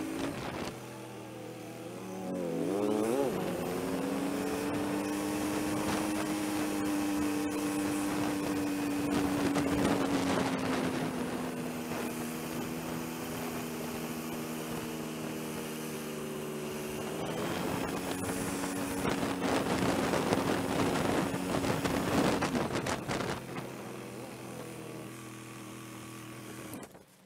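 Honda motorcycle's engine running while riding, with wind rush; its note dips about two seconds in, then holds steady. Near the end the engine settles to a lower note and falls away as the bike stops.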